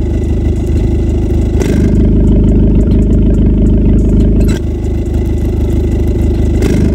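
Maruti Suzuki Swift engine idling, heard at the tailpipe of its aftermarket valvetronic exhaust. A short click comes about a second and a half in, again past the middle and once more near the end, each time the tone of the exhaust changes as the vacuum-driven flap inside the silencer swings open or shut.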